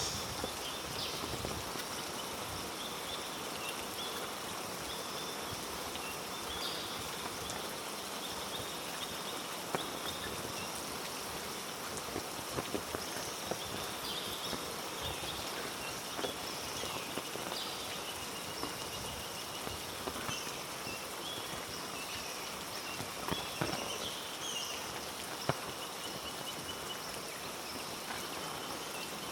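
Heavy rain falling steadily on rainforest foliage, with sharp drip taps now and then. Short, high chirps repeat throughout.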